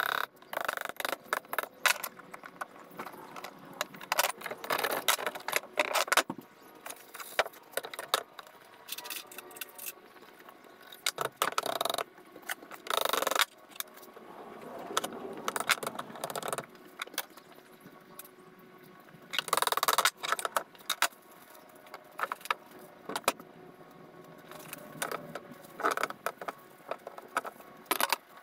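Hammer taps and the clanking and clinking of the steel parts of a Deutz-Fahr Agrotron 100 front axle hub being taken apart by hand. The knocks are irregular, with louder clusters of clanks a little before halfway and about two thirds of the way through.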